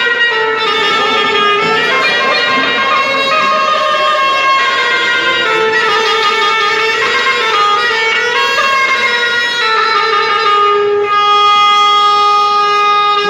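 Rababa, the Bedouin one-string spike fiddle, bowed in a solo melody of held and sliding notes, the instrumental lead-in to an ataba song.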